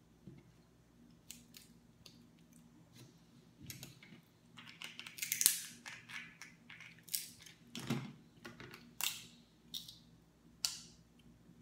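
Cooked Dungeness crab leg shells cracking and snapping as they are broken open by hand and with a metal crab tool: a run of short sharp cracks, loudest and thickest about halfway through.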